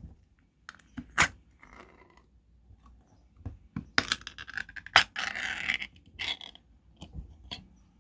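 A series of sharp clicks and knocks, with a scraping rasp lasting most of a second about five seconds in, like something being handled and scraped.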